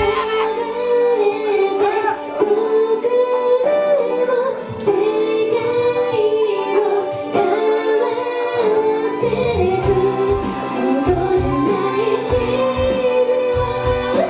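Women singing a pop song over a backing track, the melody held in long notes; about nine seconds in, a steady kick-drum and bass beat comes in strongly under the vocals.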